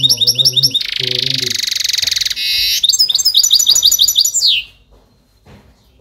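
Caged European goldfinch singing: fast runs of high twittering notes with a buzzy trill in the middle, ending on a falling note a little over four and a half seconds in.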